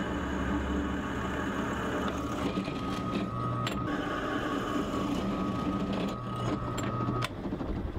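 Drill press running, its twist bit boring through 3/16-inch-wall steel square tubing: a steady motor hum, with a thin whine that comes in a couple of seconds in and stops near the end.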